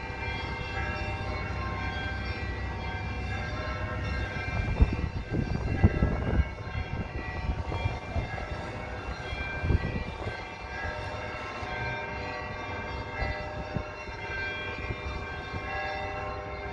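Orthodox church bells ringing together, many overlapping tones hanging on steadily. Low rumbling thumps come through about five to six seconds in and again around ten seconds.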